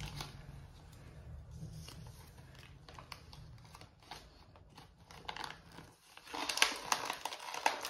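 Paper gift bag and wrapping paper crinkling and rustling as a small child's hands dig into the bag and tug at a wrapped present. The crinkling grows into a louder, denser run of crackles in the last two seconds.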